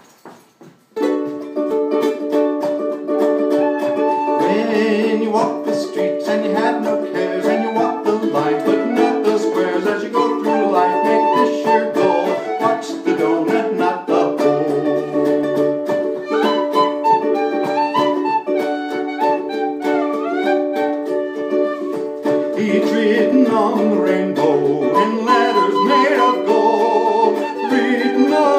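Ukulele strumming chords while a small whistle plays the melody above it, the music starting about a second in.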